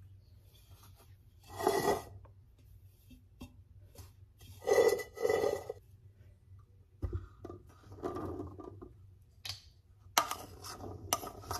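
Gauze cloth being rustled and handled as it is spread inside a stainless steel Instant Pot inner pot. About ten seconds in, boiled soybeans are tipped from a steel bowl into the cloth-lined pot, giving a quick run of small clicks and clatter.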